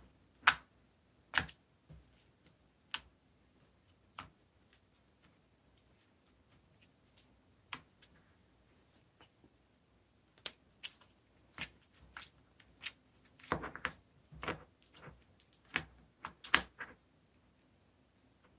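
Irregular sharp clicks and taps: single ones spaced a second or more apart, then a quicker run of them about two-thirds of the way in.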